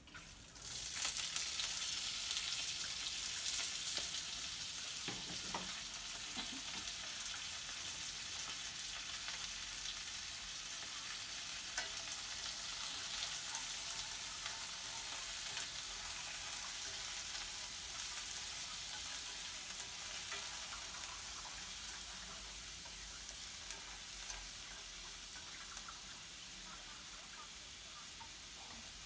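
Raw shell-on shrimp hitting hot oil and garlic in a wok, sizzling loudly at once, then frying with a steady sizzle that slowly eases. Chopsticks stirring them make occasional light clicks against the pan.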